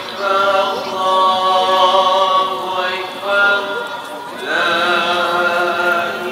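Men's voices chanting a slow Islamic chant, with long held notes that glide between pitches.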